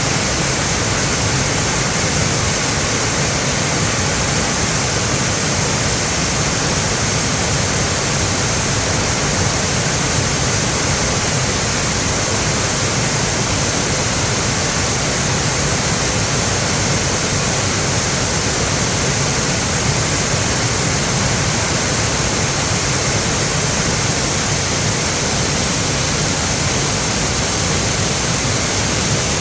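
Mountain valley stream rushing strongly, swollen by rain: a steady, loud rush of water.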